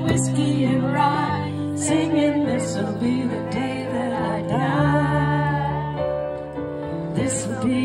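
Live music: a woman singing a wavering vocal line over held keyboard chords that change every second or two.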